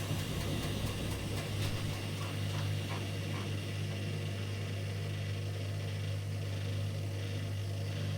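Washing machine spinning with a steady low hum and a squeak on the spin cycle, sharpest in the first few seconds.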